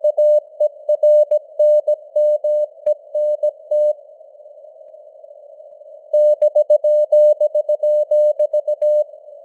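Morse code (CW) keyed at 17 words per minute: a single steady tone switched on and off in dots and dashes over simulated radio hiss. Near the middle the keying stops for about two seconds, leaving only the hiss, then starts again.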